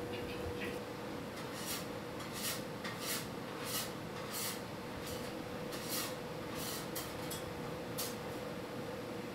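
Shop ambience: a steady hum, with about ten short, hissy scraping sounds coming irregularly from about a second and a half in until near the end.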